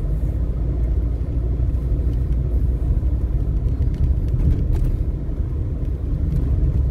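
Low, steady rumble of a car driving slowly along a city street: engine and tyre noise heard from inside the cabin.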